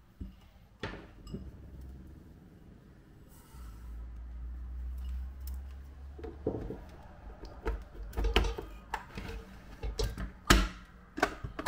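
A series of knocks and taps, sparse at first and busier in the second half, over a low rumble lasting a few seconds.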